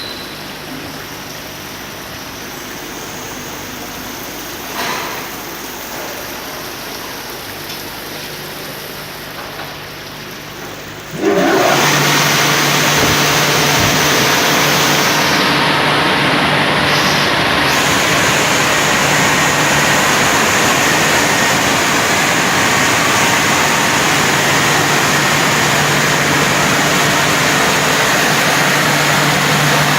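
Automatic heavy-vehicle wash machinery running with a steady hum; about eleven seconds in a much louder, even rushing noise switches on and holds steady.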